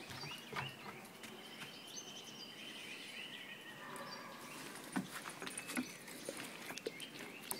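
Light tapping of a dog's claws on wooden decking as it walks, under faint high chirping calls and one held whistle-like note.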